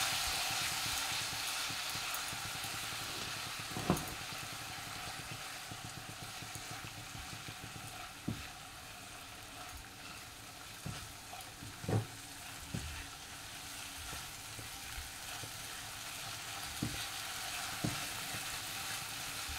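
Spice paste with whisked yogurt sizzling in oil in a non-stick kadai while it is stirred and fried down until the oil separates. A steady sizzle, with a short knock of the spatula against the pan every few seconds, the loudest about twelve seconds in.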